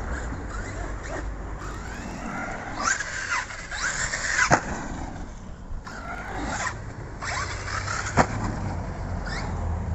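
Brushless electric motor of an Arrma Kraton 4S RC truck whining, rising and falling in pitch again and again as it revs, with two sharp thuds of the truck landing, about four and a half and eight seconds in.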